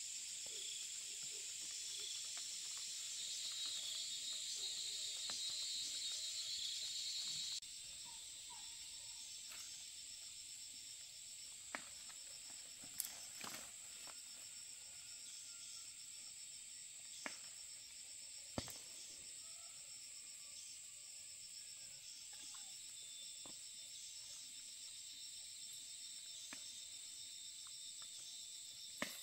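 Steady, high-pitched insect chorus that shifts abruptly about eight seconds in, with a few sharp clicks and knocks scattered through.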